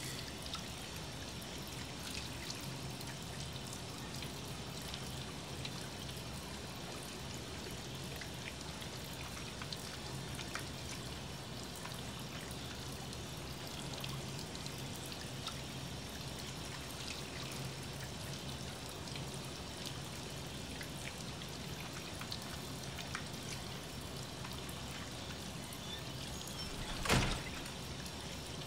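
Tap water running steadily into a stainless-steel kitchen sink during dishwashing, with scattered small clinks of crockery and one louder clatter near the end.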